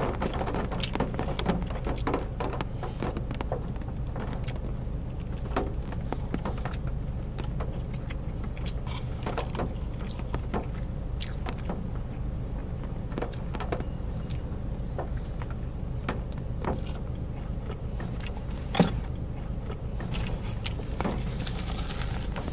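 Close-up eating sounds: chewing and wet mouth noises with scattered small clicks while a fried-chicken sandwich or wrap is eaten, over a steady low hum inside a parked car. Near the end a paper napkin rustles against the mouth.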